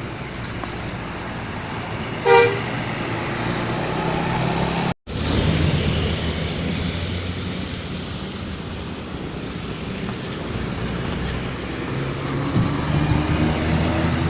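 Heavy road traffic with bus engines running, and one short horn toot about two seconds in. The sound drops out for an instant about five seconds in, and an engine note rises near the end.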